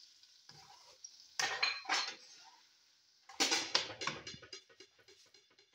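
A metal spoon clinking and scraping against a non-stick wok while stirring marinated chicken. A couple of knocks come about a second and a half and two seconds in, a louder clatter follows around three and a half seconds, and then a run of quick, light taps fades out.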